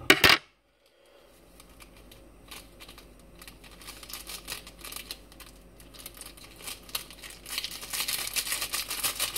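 Small plastic sauce sachet crinkling and crackling as it is torn and squeezed out by hand, getting louder over the last two seconds. A short, loud sharp sound at the very start.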